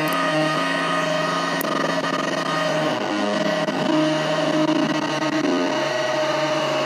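Nova Drone analog drone synthesizer sounding a dense drone of several steady, layered tones that shift in pitch every second or two.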